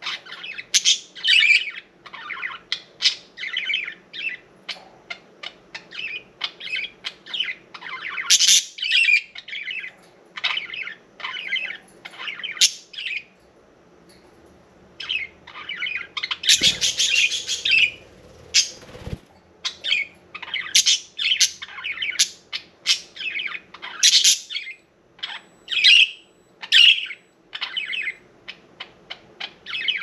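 Several pet budgerigars chirping, chattering and squawking in quick, repeated short calls, with a brief lull a little before halfway.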